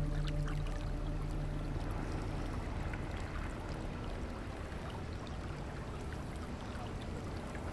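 Steady trickling, lapping water ambience, as of a swimming pool, with faint scattered ticks; a held music chord fades out within the first second.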